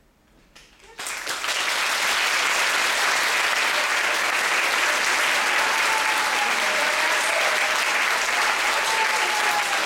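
Audience applause, starting suddenly about a second in and holding steady and loud.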